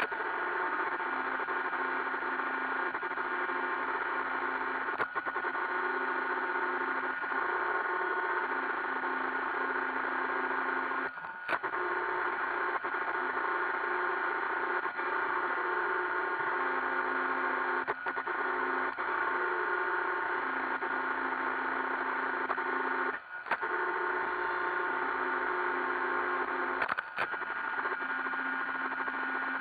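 iRobot Roomba 560 robot vacuum running: a steady whir from its vacuum motor and brushes, with a handful of brief clicks and short drop-outs every several seconds.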